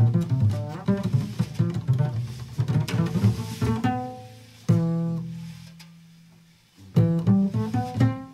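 Jazz double bass playing a line of single pitched notes. About four and a half seconds in one note sounds and dies away over some two seconds, leaving a brief gap before the line picks up again.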